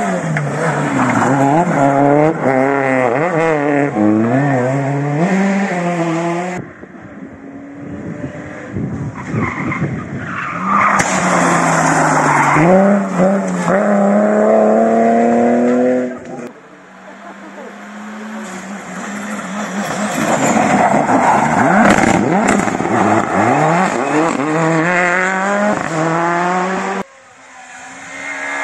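Rally cars at full stage pace, engines revving hard and dropping back through gear changes and braking, with tyre squeal, heard as several separate passes that cut off abruptly.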